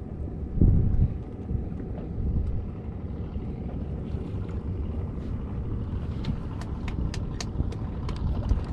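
Wind buffeting the microphone over a steady low rumble aboard a small fishing boat. A run of sharp, irregular clicks starts about six seconds in.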